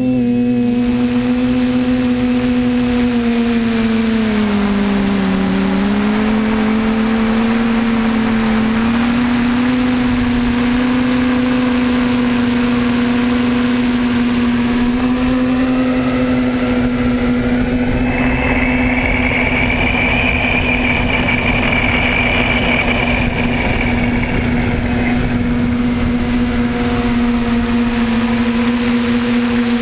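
Camera drone's motors and propellers humming steadily. The pitch dips and recovers about four to eight seconds in, and a higher whine swells and fades about two-thirds of the way through as the drone changes speed.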